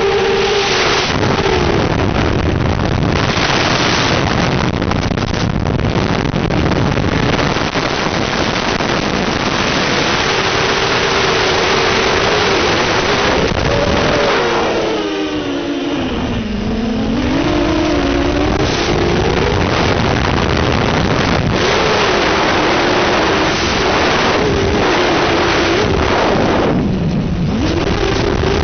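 A drone's electric motors and propellers whining under a heavy hiss. The whine drops in pitch and climbs back twice, once in the middle and again near the end.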